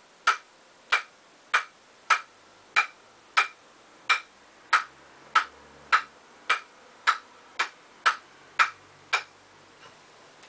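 A table tennis ball bounced over and over on the bare wooden face of a Nittaku Acoustic ST five-ply blade, one sharp click about every 0.6 seconds. The bouncing stops about nine seconds in, with one faint last tap.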